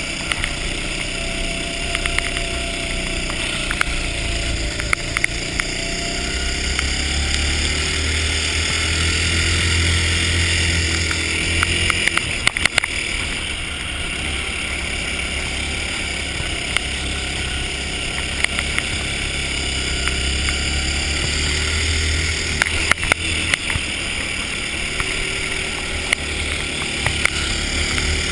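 Ice go-kart engine running under throttle on a lap, its pitch slowly rising and falling through the straights and corners, with scattered clicks and knocks from the kart over the rutted ice.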